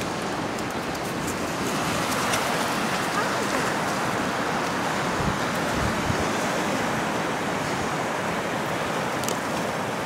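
Ocean surf breaking and washing ashore, a steady rushing noise.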